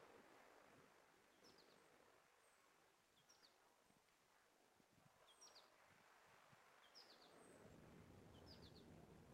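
Faint outdoor quiet with a small bird calling over and over, about every second and a half: a thin high falling note, then a quick cluster of three or four falling chirps.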